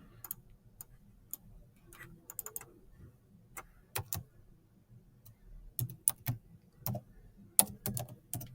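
Faint, irregular clicks of typing on a computer keyboard, single keystrokes and short runs with pauses between them.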